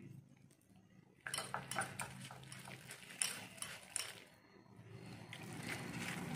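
Steel wire whisk mixing a thick curd-and-spice marinade in a bowl, its wires clicking and scraping against the bowl in a quick run of taps starting about a second in, then softer wet stirring near the end.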